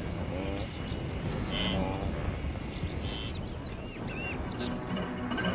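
Wildebeest herd calling: a few low, nasal grunts over a steady low rumble, with short high chirps repeating throughout.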